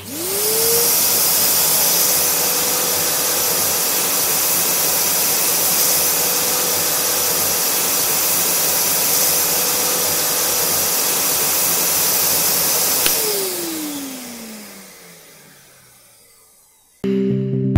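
Kärcher WD3 1000-watt wet and dry vacuum cleaner switched on, its motor spinning up within a second to a steady, loud whine and rush of suction. About 13 seconds in it is switched off with a click, and the motor winds down, its whine falling in pitch as it fades over a few seconds.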